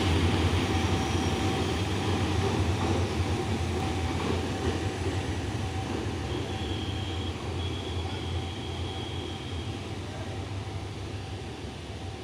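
Train running at a station: a steady low rumble that slowly fades, with a high thin squeal for a few seconds past the middle.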